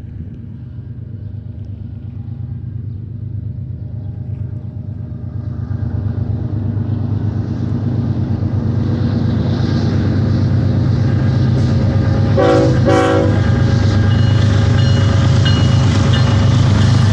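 Diesel locomotives leading a double-stack container train, their low engine drone growing steadily louder as the train approaches. About twelve and a half seconds in, the locomotive horn sounds two short blasts in quick succession.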